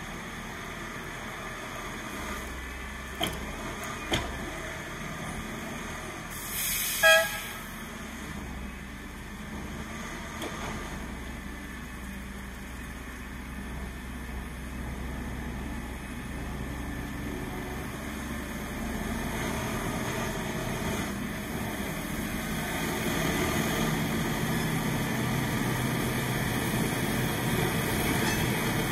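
Diesel engine of a road-rail excavator running on the track and drawing nearer, growing louder in the second half. A short horn toot about seven seconds in, after two sharp knocks.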